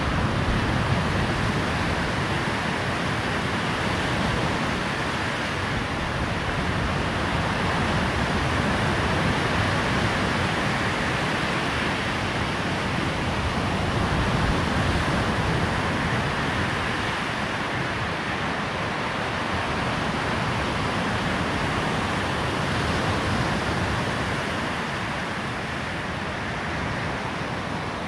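Waves breaking on a sandy beach, a continuous rush of surf that rises and falls gently as the waves come in.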